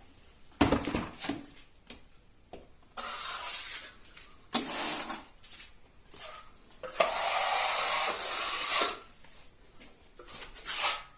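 Steel plastering trowel scraping joint compound in several separate strokes, the longest about two seconds. There is a sharp knock just under a second in.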